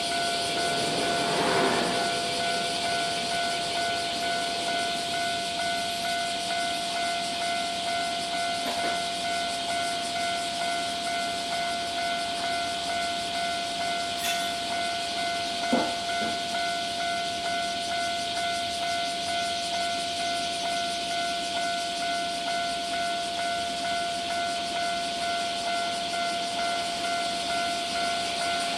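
Japanese railway level-crossing alarm ringing over and over in a steady repeating pattern, its warning held on while the barriers stay down. A single sharp knock sounds about halfway through.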